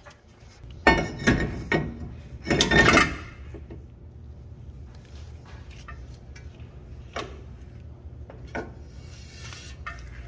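Front brake rotor turned by hand on the hub, its bent dust shield scraping against it: two loud metal rubbing scrapes about a second and two and a half seconds in, then a few faint ticks. The scrape is the sign that the dust shield still touches the rotor.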